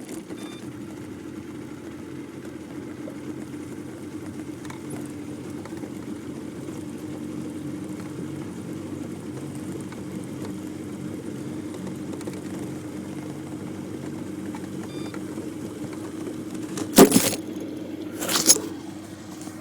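Small boat's motor running steadily with an even hum, moving the boat along. Two sharp knocks sound near the end.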